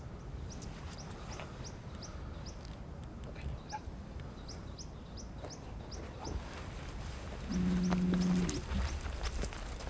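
A Cape buffalo gives one low, steady, moo-like call about a second long, near the end. Small high chirps from a bird repeat a few times a second in the background.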